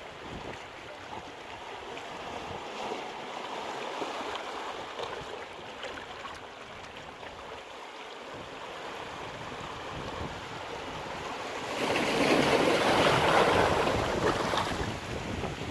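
Sea waves at high tide washing onto the shore in a steady surf. About twelve seconds in, a bigger wave breaks loudly and washes on for a few seconds before easing.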